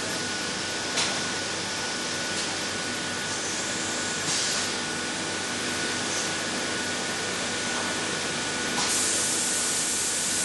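Compressed air hissing at a pneumatic exhaust-valve grinder: a steady hiss with a faint high whine. Short louder blasts of air come about four seconds in and again near the end, and there is a single click about a second in.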